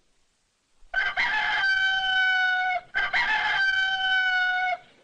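Rooster crowing twice, cock-a-doodle-doo, each crow a long held call that dips slightly at its end.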